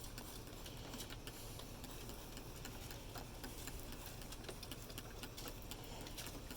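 Faint, irregular ticking and crackling from a Weber kettle charcoal grill cooking ribs, a few small clicks a second over a low steady hiss.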